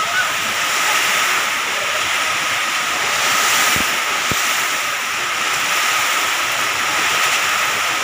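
Heavy rain pouring down in strong wind, heard from under a tent canopy: a loud, steady rush.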